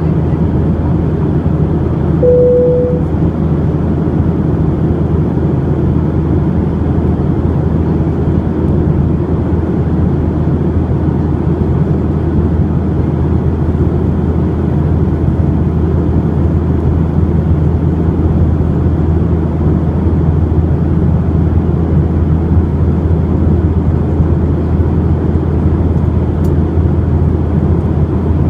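Steady cabin drone of a Boeing 737-800 in flight, its CFM56-7B engines and airflow heard from a window seat. A brief single tone sounds about two seconds in.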